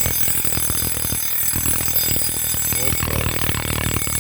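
Soviet-era mechanical wind-up alarm clock ringing continuously, its hammer striking the bell in a rapid, unbroken rattle.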